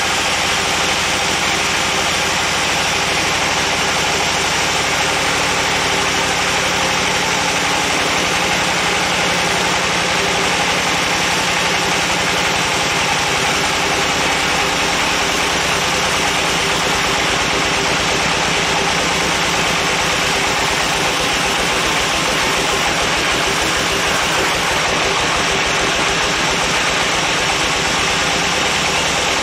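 Band sawmill running steadily, its blade cutting lengthwise through a large agathis (damar) log: a loud, unbroken machine drone with the even noise of sawing.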